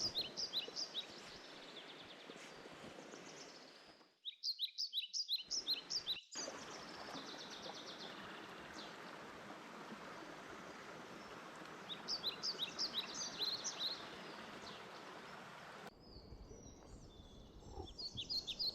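Birds calling in short repeated series of quick high chirps over a steady rushing background, the sound of a valley stream. The background cuts out and back abruptly a few times.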